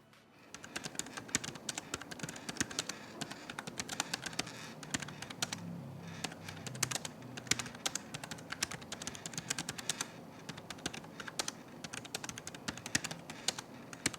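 Fast typing on a slim MILS Bluetooth keyboard with membrane switches: a rapid, irregular run of soft key presses, quiet even at speed.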